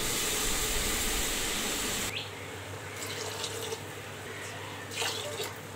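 Water pouring in a stream into an open aluminium pressure cooker onto spiced, fried rice and lentils, stopping about two seconds in. A few faint clicks and splashes follow.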